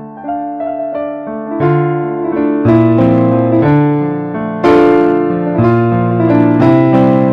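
Background piano music that grows fuller and louder about two seconds in, with a strong chord struck about four and a half seconds in.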